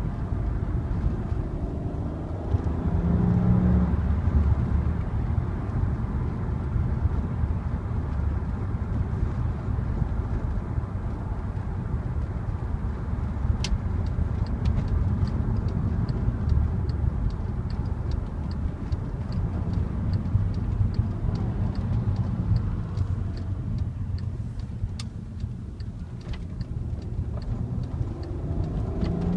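Volkswagen Passat R36's stock 3.6-litre VR6 engine and exhaust under way, with road noise; the engine revs up a few seconds in and again near the end. In the middle an even ticking runs for about ten seconds, about two ticks a second.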